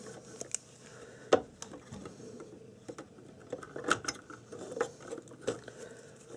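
Irregular small clicks and knocks from a blue multi-turn potentiometer being wiggled and worked loose by hand from a circuit board. The loudest is a single sharp click about a second and a half in.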